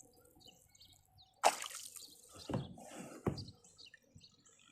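A released bluegill splashing into the water about a second and a half in, followed by two smaller splashes and dripping water.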